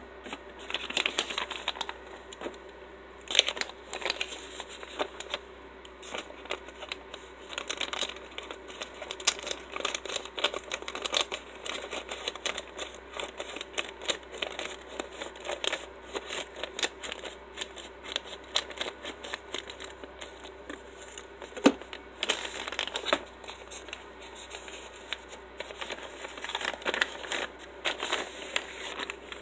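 Plastic poly mailers crinkling as they are handled and cut open with scissors: an irregular run of crackles, rustles and snips, one sharp click a little past the middle standing out.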